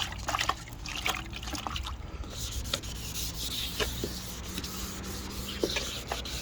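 Hand wet-sanding of a yellowed plastic headlight lens with 600-grit sandpaper: gritty rubbing strokes, separate at first and then a steadier hiss from about two seconds in.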